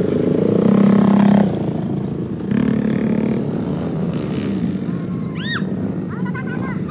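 Small ATV (quad bike) engine running, swelling as it revs about a second in and again briefly around three seconds. About five seconds in comes a short, high call that rises and falls, followed by a few smaller chirps.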